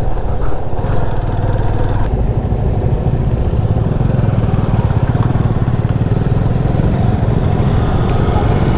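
Motorcycle engine running steadily with a fast, even pulse as the bike is ridden slowly up a steep road.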